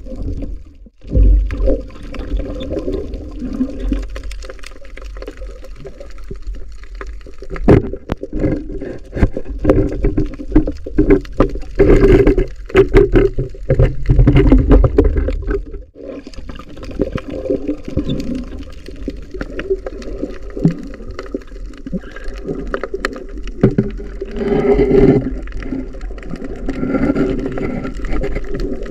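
Underwater sound picked up by a diver's camera: muffled water rushing and gurgling, with many scattered knocks and clicks. It swells loudest about twelve to fifteen seconds in and again around twenty-five seconds.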